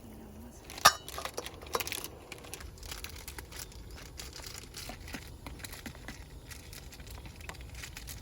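Crinkling and rustling with scattered light clicks, and one sharp clink with a short ring about a second in.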